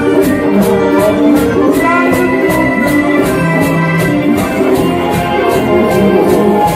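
Live cumbia band playing an instrumental passage: sustained melody notes over a steady percussion beat of about four sharp strokes a second.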